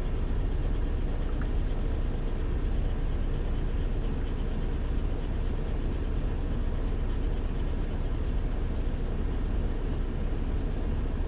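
Semi truck's diesel engine idling, a steady low rumble heard inside the parked truck's cab.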